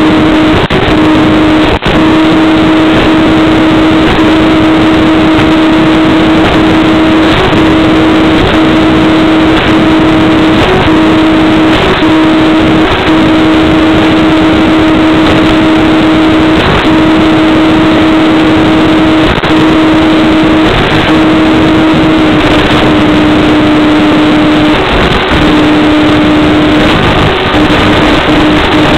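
Electric motor and propeller of an FPV model aircraft under steady power: a steady hum under loud hiss, its pitch dropping slightly about three-quarters of the way through.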